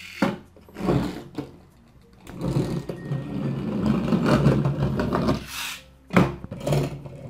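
Pull-back spring motors of small die-cast alloy toy cars whirring, with wheels on a cardboard surface: a few short whirs as the cars are dragged backward, and a longer whir of about three seconds in the middle as released cars run forward.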